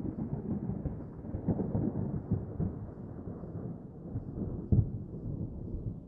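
Wind buffeting the microphone: a low, uneven rumble with a few dull knocks, slowly fading toward the end.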